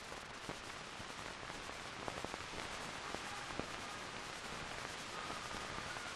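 Steady hiss with scattered crackles and pops: the surface noise of an old film soundtrack. Faint musical tones come in near the end.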